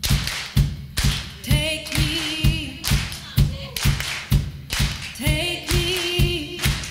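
A woman singing with vibrato, backed by a live band, over a steady beat of handclaps and drum thumps about two a second.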